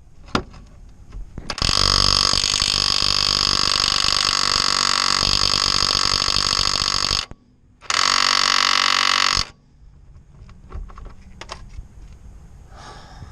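Cordless impact wrench hammering on a car's shock bolt in two long bursts, about five seconds and then about a second and a half, with a short pause between. The bolt does not come loose.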